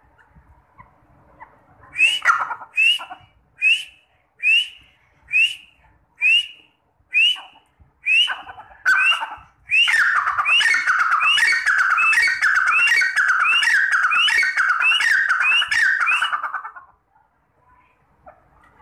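Grey francolin (teetar) calling: sharp, rising notes a little faster than one a second, starting about two seconds in. They then quicken into a loud unbroken run of ringing phrases, about two a second, that stops abruptly near the end.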